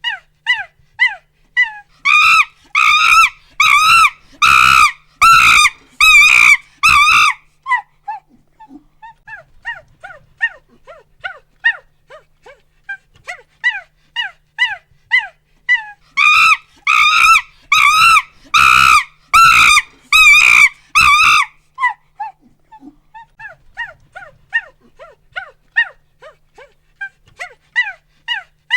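Monkey hooting: runs of short rising-and-falling hoots that build into a bout of loud, shrill screams, then fall back to softer hoots. The sequence happens twice, the screams about two seconds in and again around the middle.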